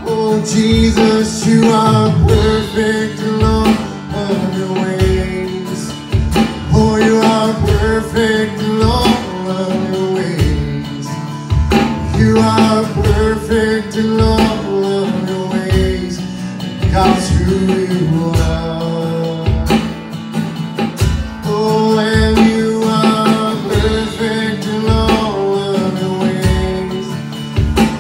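Acoustic guitar strummed in a steady, even rhythm, ringing chords as the accompaniment to a worship song.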